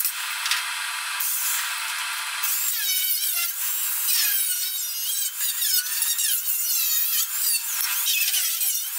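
A power tool cutting and grinding the car's old sheet steel, a high-pitched screech that keeps wavering in pitch, as rusted floor and frame metal is cut out.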